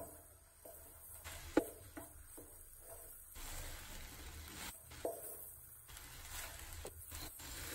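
Wooden spoon stirring and tossing cooked rice in an aluminium pot: soft, irregular scrapes and knocks against the pot, with one sharp knock about a second and a half in.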